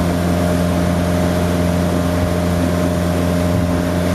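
Motorboat engine running at a steady, even speed while towing a water skier, a constant hum over the rush of its wake.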